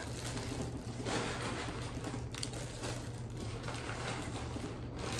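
Irregular rustling and crinkling of bags and candy wrappers being handled as candy is packed into Valentine bags.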